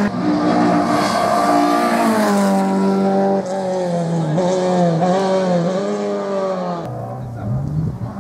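Rally cars driven hard on a closed stage, their engines revving up and dropping back through gear changes. The sound cuts abruptly from one car to another a few times. Near the end a Mk2 Ford Escort rally car approaches, its engine revving up.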